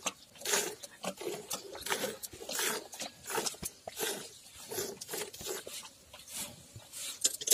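Hand milking of a cow: jets of milk squirting from the teats into frothy milk in a steel bucket, in a steady rhythm of about three squirts every two seconds.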